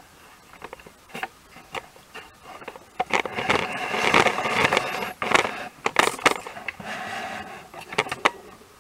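Handling noise: scattered light clicks and knocks, then from about three seconds in a few seconds of rubbing and rustling broken by sharp knocks. It fades near the end.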